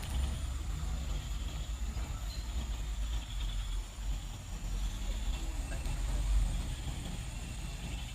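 Heavy diesel truck engine running with a steady deep rumble.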